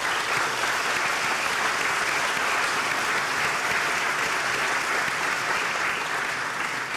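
Audience applauding steadily, many hands clapping together, tapering slightly near the end.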